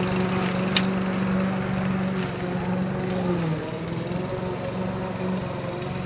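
Walk-behind lawn mower engine running steadily while mowing grass. Its note drops slightly and it gets a little quieter about three and a half seconds in, with a single sharp click about a second in.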